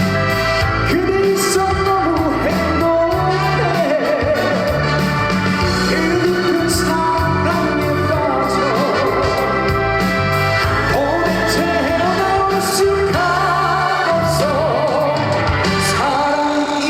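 Trot song: a male singer singing over a band backing track with a steady beat.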